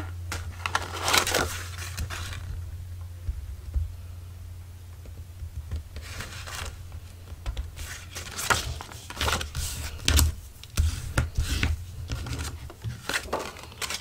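Paper and cardstock being handled and pressed on a cutting mat: rustles, flaps and light taps as the glued folio pages are pressed down and flipped over, in clusters about a second in and through the second half, over a low steady hum.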